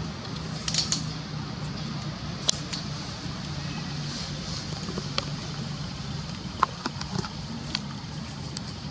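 Low steady hum of a running motor, with a few sharp clicks and crackles scattered over it, the loudest about two and a half seconds in and again about six and a half seconds in.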